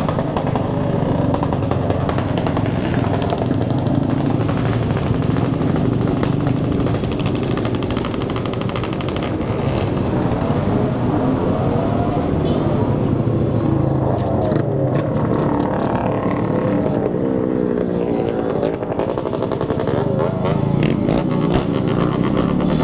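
Motorcycle engines running on the move, the riding bike's engine steady under a noisy drone of wind and road. Through the middle stretch, engine pitch rises and falls several times as motorcycles rev up and ease off.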